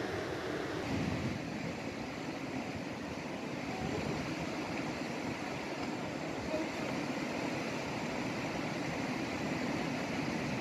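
A stream gurgling steadily, an even rushing of flowing water.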